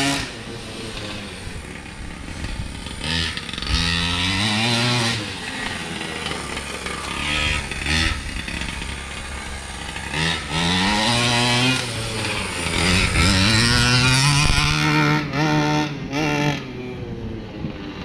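Primal RC Raminator giant-scale monster truck's two-stroke gas engine revving up and down again and again as the truck is driven, with several sharp rev-ups in quick succession.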